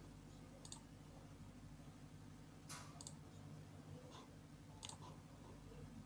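Several faint computer mouse clicks, some in quick pairs, over a low steady electrical hum.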